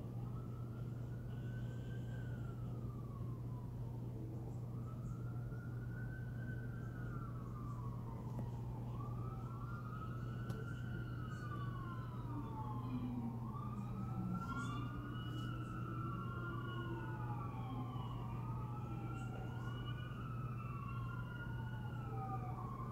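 Faint emergency vehicle sirens wailing, pitch rising and falling every few seconds; a second siren joins about nine seconds in and the two overlap. A steady low hum runs underneath.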